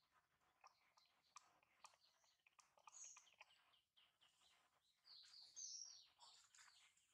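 Faint bird chirps, clearest about three seconds in and again near the end, over soft scattered clicks and crackles of coconut husk fibres being picked apart by hand.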